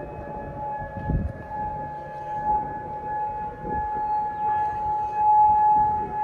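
Outdoor tsunami warning siren sounding one long steady tone, with a fainter lower tone sliding slowly downward beneath it. A low rumble comes about a second in.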